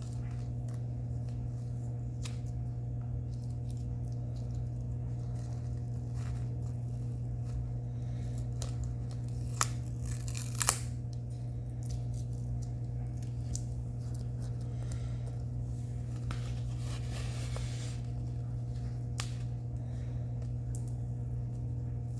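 Tape being peeled and torn off a rolled diamond painting canvas, with light rustling, scattered small clicks and two sharp ticks near the middle. A steady electrical hum runs underneath.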